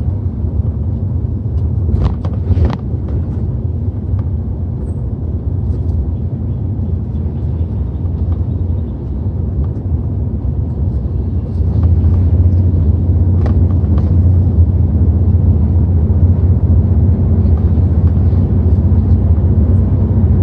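Pickup truck driving, heard from inside the cab: a steady low engine and road rumble that gets louder about twelve seconds in, with a few short knocks.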